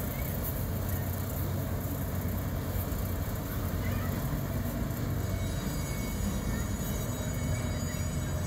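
Tug-style pilot boat's diesel engine running with a steady low drone as the boat passes close by under way, with the rush of its bow wave and wake.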